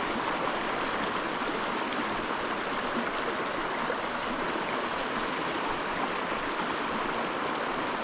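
Small mountain creek rushing and burbling over rocks, a steady water noise.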